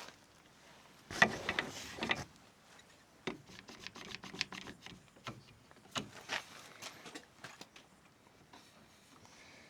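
Tools being handled and set up against a timber wall: scattered knocks and clicks, with a louder clatter about a second in.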